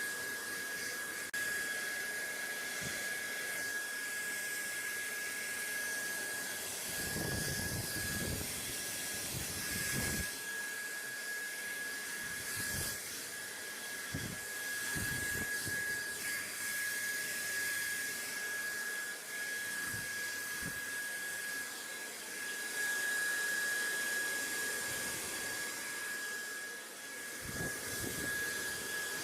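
Steady rushing white noise with a constant high-pitched whine running through it. A few brief low rumbles come and go, most around a third of the way in and again near the end.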